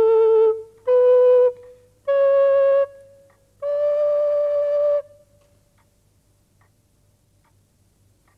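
A woodwind held and blown like a recorder plays four separate held notes, each a little higher than the one before, the last held longest. After that it stops and faint, even ticking is left.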